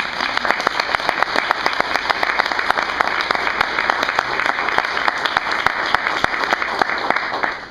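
Audience applauding: many people clapping densely and steadily, dying away near the end.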